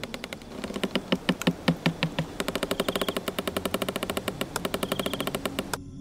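Rapid, even rattling of about ten clicks a second, a few louder strikes in the first couple of seconds, stopping abruptly near the end: a cartoon sound effect.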